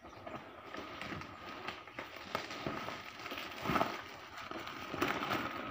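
Plastic bubble wrap crinkling and crackling as it is torn open and pulled apart by hand, with louder rustles about four and five seconds in.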